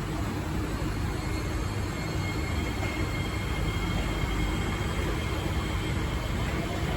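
Steady hum and rush inside a stationary Kawasaki-CRRC C151A metro train, its onboard equipment running, with faint steady high-pitched whines over it.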